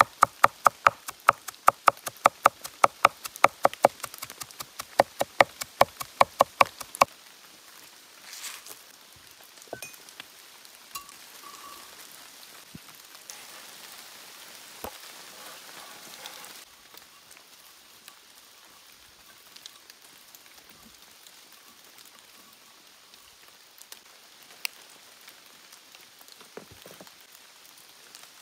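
A knife chopping onion on a wooden cutting board: fast, even strokes, about four or five a second, that stop about seven seconds in. Midway there is a few seconds of soft scraping as the chopped onion is pushed off the board with the knife blade.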